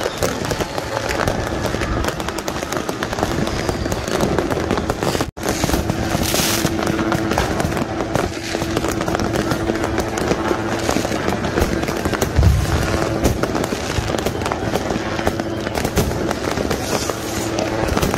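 Many fireworks and firecrackers going off at once, a dense, continuous crackle of bangs. A steady low tone is held through the middle, and the sound cuts out for an instant about five seconds in.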